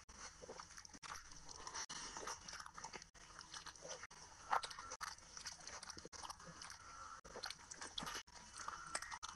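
Close-miked mukbang eating: a person biting and chewing curry-soaked food eaten by hand, with many irregular wet mouth clicks and crackles and one louder click about four and a half seconds in.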